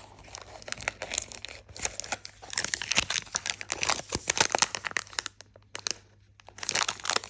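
Thin plastic packaging bags crinkling and tearing as small lure packets are handled and opened, with a short quiet pause about three-quarters of the way through.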